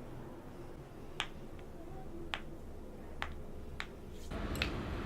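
Thumb and finger knuckles being cracked: a series of separate sharp pops, roughly one a second.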